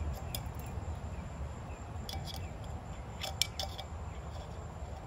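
Small metal bush pot and its wire bottle hanger clinking lightly as they are handled: a few scattered metallic clicks, the sharpest about three and a half seconds in, over a steady low rumble.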